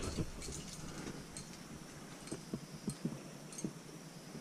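About half a dozen light, irregular metallic clicks and clinks: a lead climber's carabiners and quickdraws knocking together on the harness gear loops.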